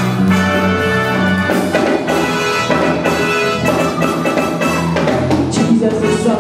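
Live gospel band playing an instrumental passage: a drum kit keeping the beat under sustained chords.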